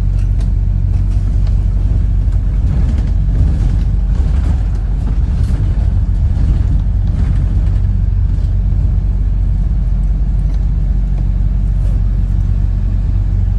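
Steady low engine and road rumble of a moving double-decker bus, heard from inside, with a few faint rattles.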